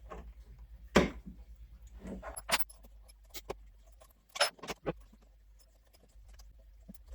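A few sharp metallic clicks and light rattles, spaced irregularly with a pair close together a little past the middle, from a magnetic drill press being handled as its feed handles run the motor carriage up the slide.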